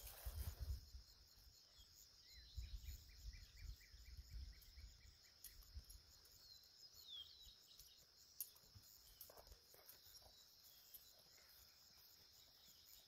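Near silence in the open: a faint steady high drone of crickets, with scattered bird chirps. There is a quick run of chirps a few seconds in, and a couple of falling whistles a little past the middle.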